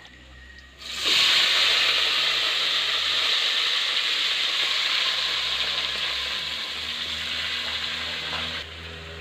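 Chicken pieces sizzling loudly in hot oil and sautéed onions in a metal pot, starting abruptly about a second in as the chicken goes in and slowly dying down.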